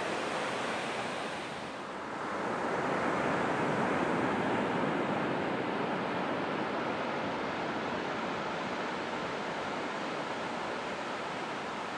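Ocean waves breaking on a beach: a steady rushing wash of surf that swells louder about two seconds in as a wave breaks, then slowly eases off.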